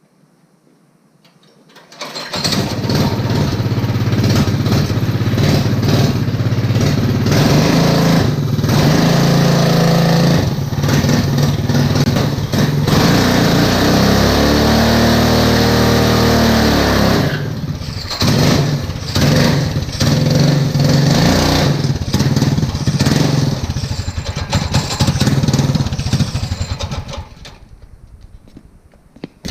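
Racing lawn mower's small engine comes in abruptly about two seconds in and runs loudly, revving up and down as it is ridden, with one long rise and fall in pitch midway. It drops away near the end.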